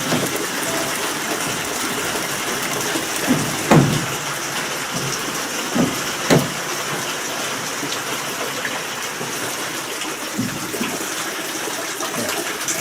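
Heavy rain pouring steadily, with a few dull knocks in the middle.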